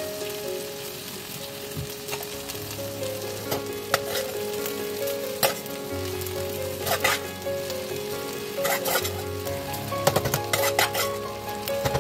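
Chicken pieces sizzling in a non-stick pan while parboiled rice is spooned over them, with the metal spoon clicking and scraping against the pan a number of times, more often in the second half.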